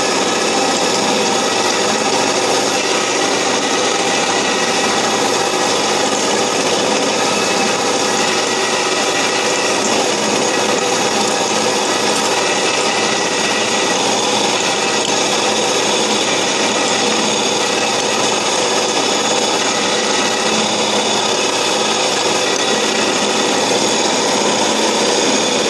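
Covington wet belt sander running steadily under load, with the edge of a fused-glass disc grinding against the wet abrasive belt as the disc is turned.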